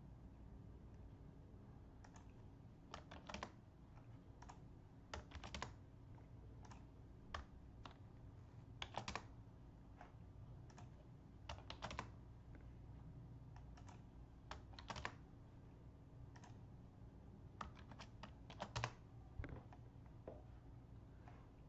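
Computer keyboard being typed on in short irregular clusters of key clicks, with pauses between them, over a faint steady low hum.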